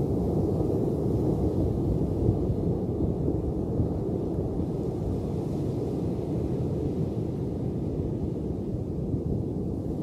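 Steady low rumble of surf breaking on a beach, mixed with wind buffeting the microphone, with no distinct wave crashes standing out.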